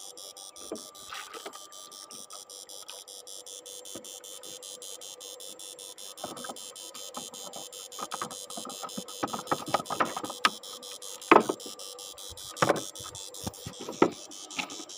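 Yangdong Y800 boat engine running, heard as a steady rapid ticking of about eight a second with a faint hum. From about six seconds in, irregular knocks and clatter in the wooden boat, loudest a little past eleven seconds.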